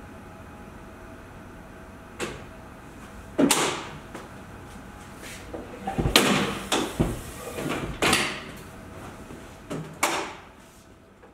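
Plastic-wrapped reel being pushed onto and along a horizontal stainless-steel mandrel: a series of short scrapes and knocks, the loudest about three and a half seconds in, with a cluster from about six to eight seconds and a last one near ten seconds.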